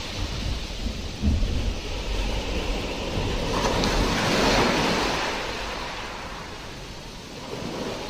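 Thunderstorm nature-sounds recording: rain with low rumbling thunder, swelling to a loud rush about halfway through and then fading away.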